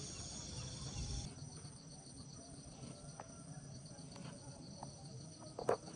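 Crickets and other night insects trilling steadily at several high pitches, the mix of trills changing about a second in. A short knock near the end is the loudest sound.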